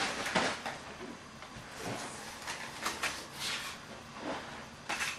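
Thin plastic bag rustling and crinkling in short, irregular bursts as it is handled and pulled away, with a sharp click near the end.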